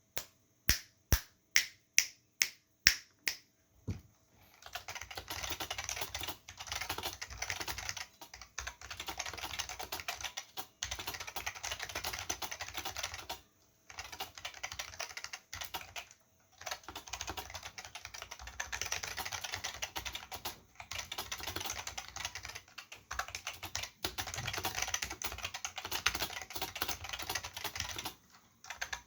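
Keys of a vintage Olivetti M15 keyboard with Futaba MA mechanical switches and PBT keycaps. First come about eight separate, louder key presses, evenly spaced. Then fast, continuous typing, broken by a few short pauses.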